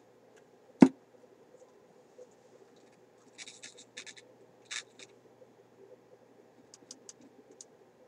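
One sharp click about a second in, then short scratchy rustles around the middle and a few light ticks near the end, over a faint steady hum.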